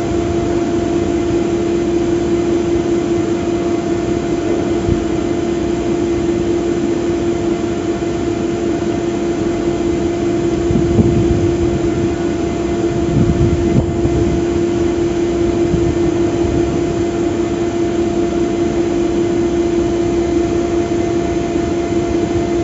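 Gantry crane hoist machinery running with a steady hum and a strong continuous tone as it lowers an 80-ton stoplog on its wire ropes, with a few low rumbles near the middle.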